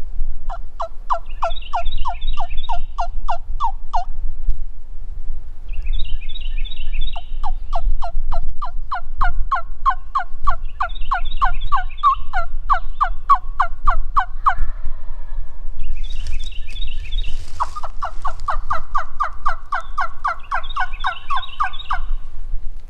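Turkey calling: three long runs of rapid, evenly repeated notes, about eight a second. The first is short, the second is the longest, and the last comes near the end.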